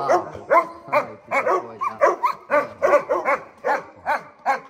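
A dog barking over and over, about three short barks a second.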